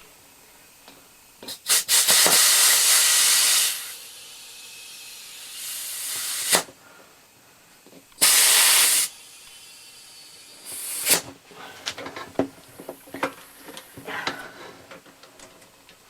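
Compressed air hissing from an air hose in several bursts of a second or two, inflating a freshly fitted inner tube in a small lawn tractor tire to seat the bead. Sharp clicks and light taps follow in the second half.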